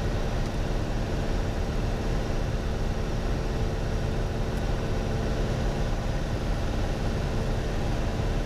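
Piper Warrior's four-cylinder Lycoming engine and propeller running steadily in flight, a constant drone heard inside the cockpit.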